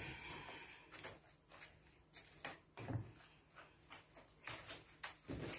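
Hand potato masher pressing thawed, watery pumpkin in a plastic bowl: soft, irregular knocks against the bowl.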